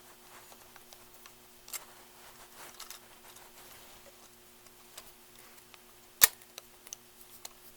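Small scattered clicks and taps of hand tools and small screws against a metal carburetor choke bracket as a screw is being started, with one sharp click about six seconds in; a faint steady hum runs underneath.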